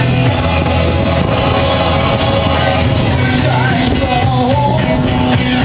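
Rock song with a sung vocal over a steady bass line.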